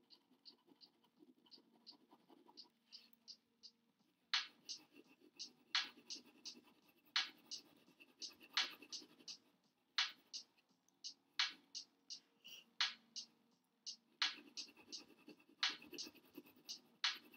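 Pencil scratching on paper in quick back-and-forth shading strokes: light at first, then from about four seconds in, stronger strokes roughly every second and a half with quick lighter ones between.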